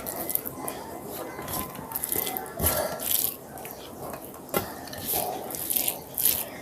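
Close-miked chewing and mouth sounds of eating rice and fish curry, in short repeated bursts, with two sharp clicks about two seconds apart.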